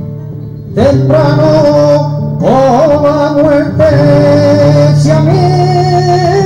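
Male flamenco singer (cantaor) singing long, wavering melismatic lines, accompanied by a flamenco guitar. After a brief quieter moment the voice comes in about a second in.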